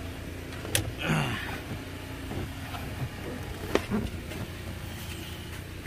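Handling noise under a car dashboard: two short sharp clicks, about a second in and again near four seconds, over a steady low background hum.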